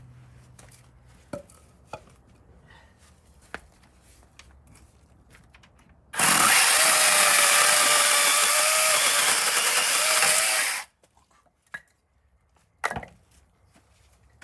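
Chainsaw cutting wood in a single steady burst of about four and a half seconds that starts and stops abruptly. A few faint clicks and knocks come before and after it.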